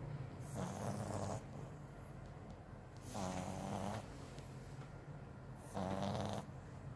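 French bulldog snoring: three louder snores about two and a half seconds apart, with quieter breathing between them.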